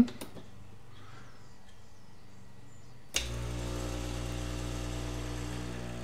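Nespresso Lattissima One espresso machine starting a lungo. About three seconds in, its pump comes on with a click and runs with a steady buzzing hum.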